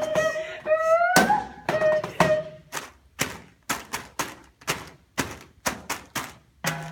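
Found-object percussion: everyday objects such as a water bottle and a cardboard box struck in a steady pulse of sharp taps and knocks, about two a second. Over the first two and a half seconds a pitched sound slides upward again and again over the taps, then drops out. A low steady tone comes in near the end.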